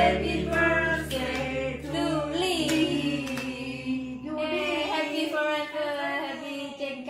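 A small group of voices singing a birthday song together. A background music track plays under them and drops out about five seconds in.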